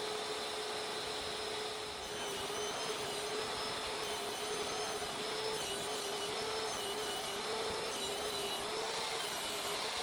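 A power tool's motor running steadily: a noisy hum with a slightly wavering tone, joined about two seconds in by a faint higher whine.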